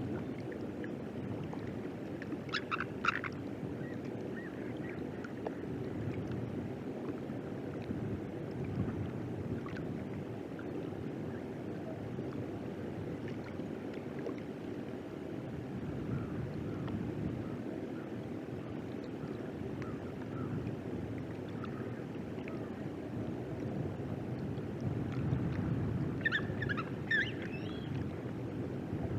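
Steady low outdoor rushing noise with two short bursts of high, chittering eagle calls, one near the start and one near the end.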